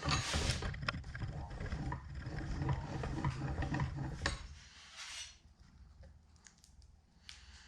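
Metal bench vise parts being handled and fitted during reassembly, with clinking and scraping. It is busy for about four seconds, then only a few light clicks.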